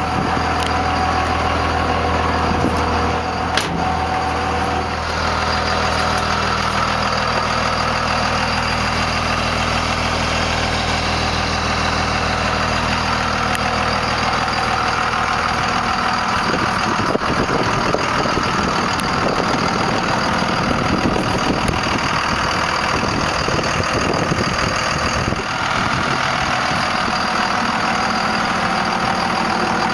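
Cummins inline-six turbo diesel of a 1998 Dodge Ram 2500 idling steadily. About halfway through, irregular knocks and rustles join it.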